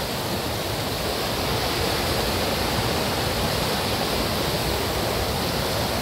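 Clear mountain stream rushing over rocks and small cascades: a steady, even wash of white-water noise.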